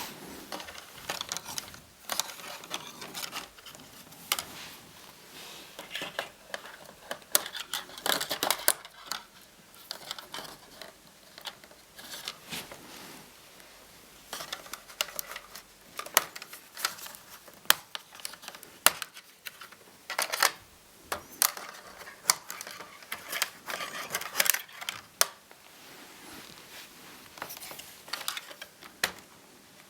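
Irregular clicks, taps and scraping of hands working the Wi-Fi antenna wires free of their routing channels in a laptop's plastic chassis.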